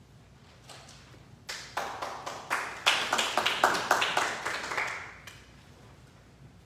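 A small congregation clapping. It starts about a second and a half in, thickens, and dies away after about three and a half seconds.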